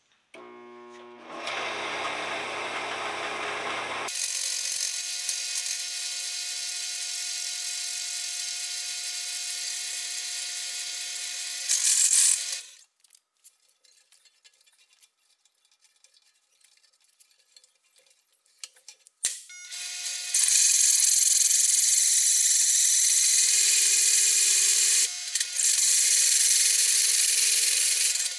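A hole saw in a drill press cuts through a stainless steel exhaust manifold tube: a steady, high grinding hiss over the press's motor hum. It stops for several seconds midway while the spindle speed is lowered, then cuts again, louder, until near the end.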